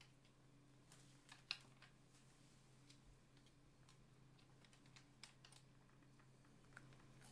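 Near silence: faint room tone with a low steady hum and a few scattered soft clicks, one sharper click about one and a half seconds in.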